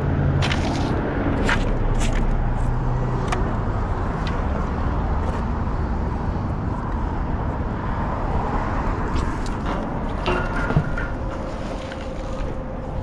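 Steady rumble of road traffic on the bridge, with a few sharp metal clinks in the first few seconds as nails are pulled off the magnet and dropped into a bucket. A single sharp knock comes a little before the end.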